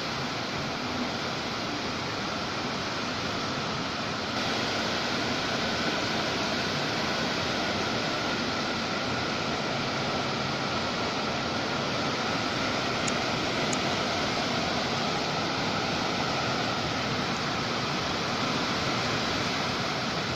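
Steady rain and wind of a tropical storm, a dense even hiss that gets a little louder about four seconds in.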